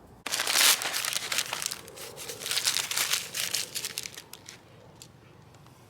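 Dry material being crumpled and crinkled by hand for about four seconds, dying away near the end.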